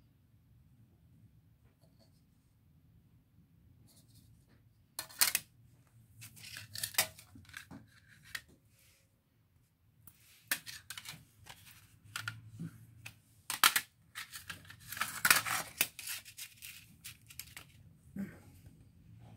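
Handling of CDs and a plastic CD jewel case: an irregular run of sharp plastic clicks with scraping and rustling between them, starting about five seconds in, the loudest clicks near the start and about two thirds of the way through.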